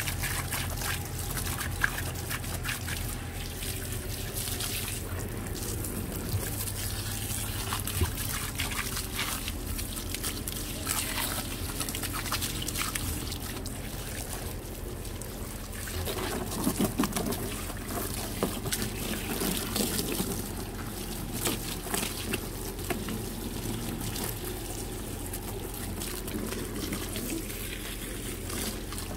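Water spraying from a hose wand onto a golf cart's wheel and plastic body panels and splashing off onto wet concrete, with a steady low hum underneath. The spray sounds livelier for a few seconds in the middle.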